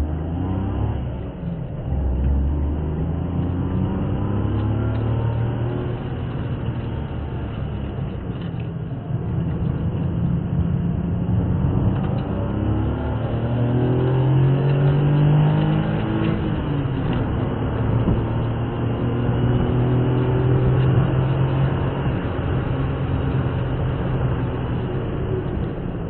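Car engine heard from inside the cabin through a dashcam microphone, revving up and dropping back several times as the car accelerates and shifts gear around a race circuit, over steady road and tyre noise.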